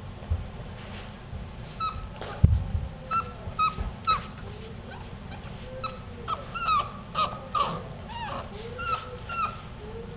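Six-week-old puppies yipping and whining while they play-fight: about a dozen short, high calls, many sliding down in pitch, starting about two seconds in. A single thump comes about two and a half seconds in.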